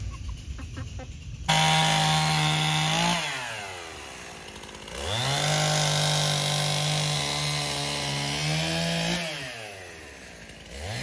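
Gas chainsaw's two-stroke engine revving at full throttle, dropping back to idle about halfway through, revving up again, then falling off once more near the end.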